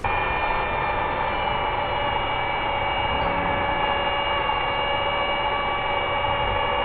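A steady mechanical drone: an even rushing noise with several steady tones held over it, starting abruptly at a cut and unchanging after that.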